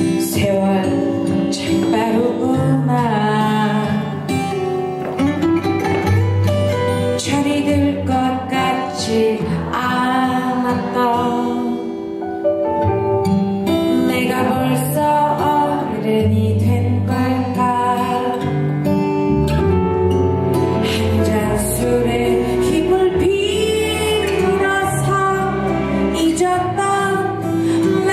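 A woman singing a Korean pop song into a handheld microphone over a musical accompaniment with guitar.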